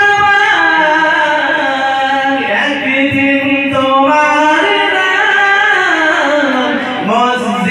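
A man singing an unaccompanied Bengali Islamic devotional song (gojol) into a microphone, drawing out long held notes that slide between pitches.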